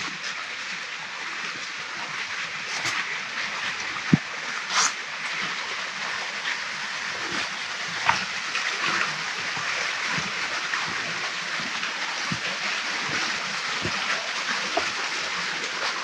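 Steady hiss of rain falling on wet trees and undergrowth, picked up by a GoPro Hero 8's internal microphone, with scattered soft taps and thuds of footsteps on a wet path.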